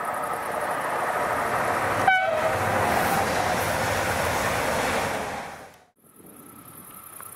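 A train passing close by at speed: a loud rushing, rolling noise that builds over the first few seconds, with a brief pitched blip about two seconds in. The sound cuts off suddenly near the end, leaving a quieter background.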